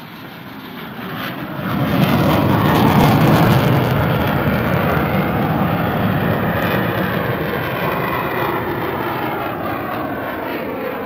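Fighter jet flying low past: its engine roar swells sharply about two seconds in, is loudest for a couple of seconds, then slowly fades.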